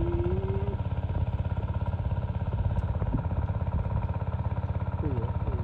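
A small engine running steadily at idle, with rapid even pulses throughout. A short voice sound comes near the end.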